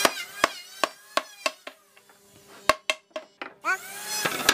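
A mallet knocking on the wooden frame of a panel door to seat its rail and joints during assembly. There is a quick run of sharp taps about three a second, a pause, then a few more taps.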